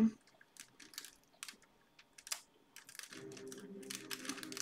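Scissors snipping through the thin plastic cover film of a diamond-painting canvas, heard as a scatter of short sharp clicks and light crinkling. Faint background music comes in about three seconds in.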